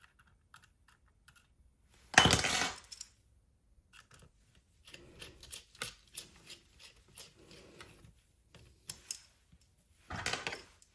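Small metal parts and a hand tool clinking and rattling on a workbench during reassembly of a Meta Quest 3 headset with tiny screws. Light clicks run throughout. Two louder rattling clatters of about half a second each come about two seconds in and near the end.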